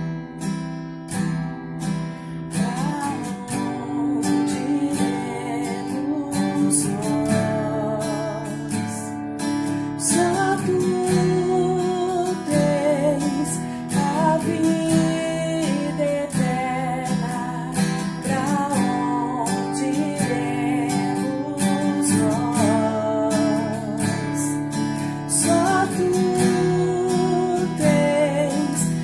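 A woman singing with vibrato to a strummed acoustic guitar. The guitar plays alone for the first couple of seconds before her voice comes in.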